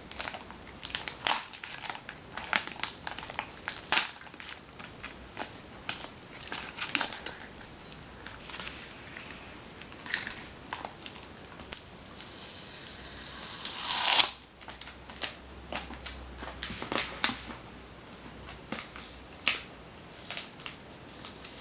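Taped packaging being cut and pulled apart: scattered crackles, snips and crinkling, with one longer tearing sound that rises and cuts off suddenly about fourteen seconds in.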